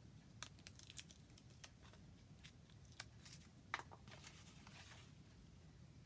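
Faint, scattered light clicks and short rustles of thin fretwork pieces and bits of tape being handled and fitted together on a saw table, with one sharper click a little before the four-second mark.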